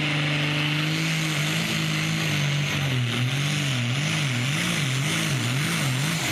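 Super stock pulling tractor's turbocharged diesel engine running hard under load. Its pitch holds steady at first, then from about two and a half seconds in it swings up and down about twice a second.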